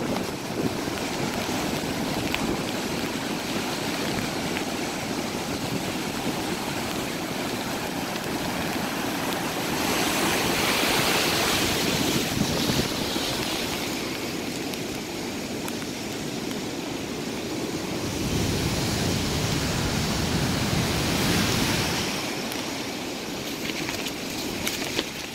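Heavy storm surf breaking and strong storm wind, with gusts buffeting the microphone. The noise grows louder about ten seconds in and again around twenty seconds in.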